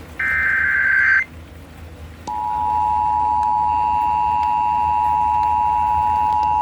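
A one-second burst of Emergency Alert System SAME header data tones. About two seconds in, the EAS two-tone attention signal starts, a steady dual tone broadcast over FM radio that announces a tornado warning.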